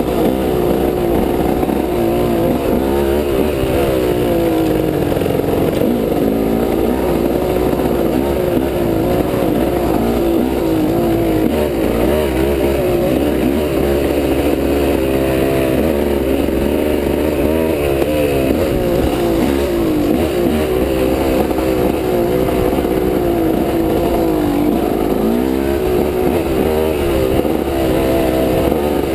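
Off-road motorcycle engine running under way, close to the microphone, its pitch rising and falling continually as the throttle is opened and eased.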